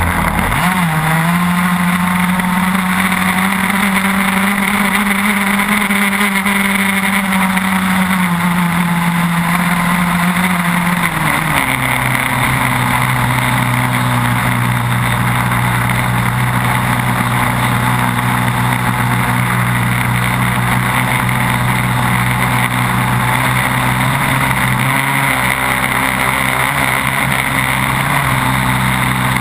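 Single-cylinder 30cc two-stroke petrol engine of an RC racing catamaran, fitted with a tuned exhaust pipe, running flat out from right beside it, with water spray hissing off the hull. About eleven seconds in the engine note drops to a lower pitch and holds there.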